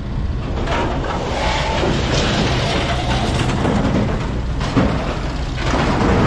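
Heavy diesel machinery running at a scrap yard while a load of scrap steel is scooped out of a trailer, with metal scraping and a few clanks over a steady engine rumble.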